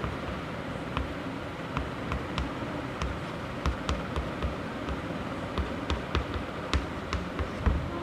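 Chalk tapping and scraping on a chalkboard while words are written: a run of light, irregular clicks over a steady low hiss.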